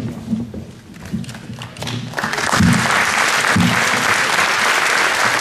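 Audience applauding, swelling into loud, steady clapping about two seconds in.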